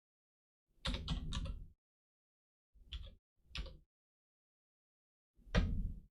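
Computer keyboard keystrokes in four short bursts of clicks, the first a quick run of several taps, the last the loudest.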